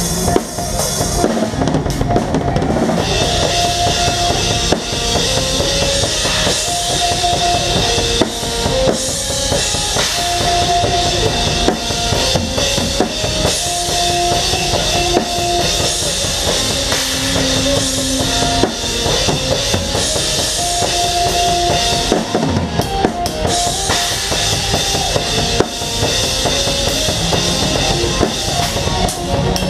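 Drum kit played live in a full band: kick drum, snare and cymbals driving under a stepping melodic lead line. The cymbal wash thins out briefly about two seconds in and again around twenty-two seconds in.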